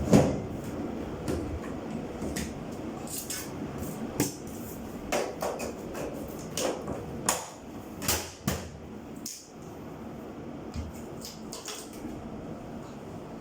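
Scattered, irregular knocks and clicks of hard objects being handled and set down, over a steady background hiss.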